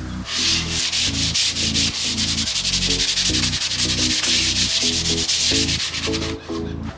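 Wood being hand-sanded in rapid back-and-forth strokes, stopping about six seconds in, over background music with a steady beat.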